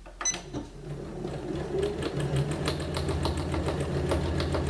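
Janome Memory Craft 9900 computerised sewing machine stitching a straight quilting line: a sharp click just after the start, then the motor picks up speed over the first second or two and runs steadily with a rapid, even clatter of stitches.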